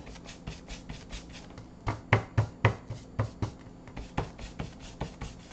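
Paintbrush scrubbing acrylic paint onto the painting surface in quick crisscross strokes, a dry scratchy brushing about five strokes a second, a few strokes louder from about two seconds in.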